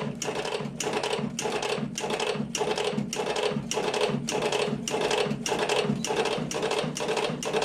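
R55 automatic cigarette-filling machine running, rolling cigarettes with an even mechanical clatter of about three strokes a second.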